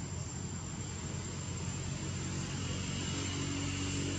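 Steady low mechanical drone, like a distant engine, growing a little louder in the second half. A thin, steady high-pitched whine runs over it.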